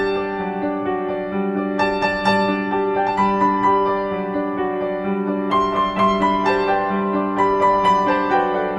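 Background music: a gentle piano melody over held chords.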